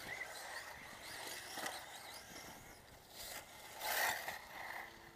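Electric off-road RC buggies racing on a dirt track: thin, high motor whines rising and falling as the cars accelerate and brake, with tyres scrabbling, and a louder rush about four seconds in as cars pass close by.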